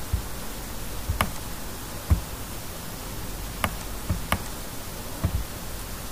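About seven scattered, sharp clicks of a computer mouse over a steady hiss of microphone noise.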